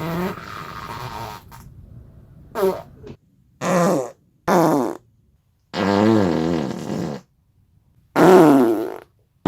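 A series of farts: a drawn-out, softer one over the first three seconds, then four separate louder farts of half a second to a second and a half each. Each has a buzzing pitch that wavers, and the last is the loudest.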